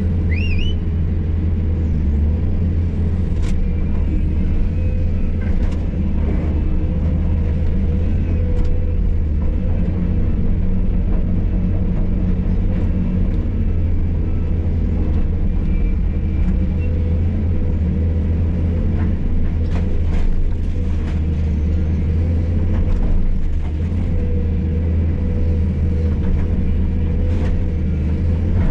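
Hydraulic excavator at work: its diesel engine runs steadily under load with a wavering hydraulic whine, and scattered knocks and scrapes come from the bucket breaking up and moving concrete floor slab and rubble.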